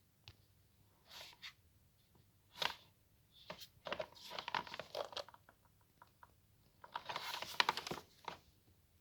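Packaging being handled during an unboxing: irregular bursts of rustling, crinkling and tearing with small clicks, the longest about four and seven seconds in.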